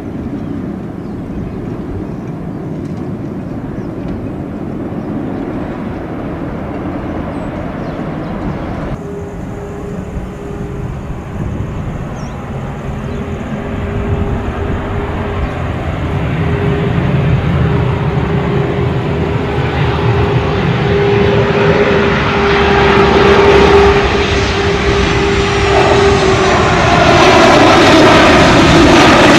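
Boeing 737 airliners' jet engines. First a steady rush from a landed jet on the runway. Then an approaching jet's engines give a steady whine and a rush that grows louder, and near the end a much louder rush as a 737-800 touches down.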